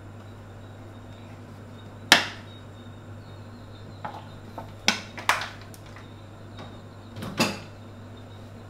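Sharp knocks and clacks of kitchenware while cooking oil is put into a wok: one loud knock about two seconds in, a cluster of lighter knocks around five seconds, and a last pair near the end.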